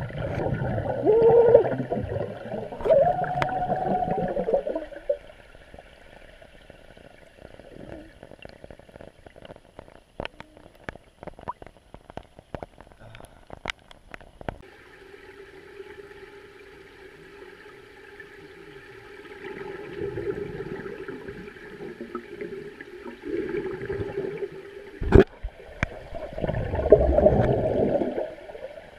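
Underwater sound in a swimming pool: gurgling of exhaled air bubbles, loud in the first few seconds and again near the end. In between it is quieter, with scattered sharp ticks of rain striking the water surface above and a steady low hum.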